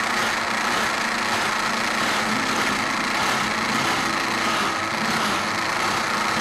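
Electric vegetable juicer's motor running steadily at a constant pitch as it grinds spinach and strains the juice from the fibre.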